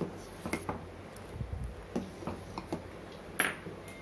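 Metal spoon stirring milk in a metal pot, clinking and scraping against the pot in irregular strokes, with one louder clink near the end.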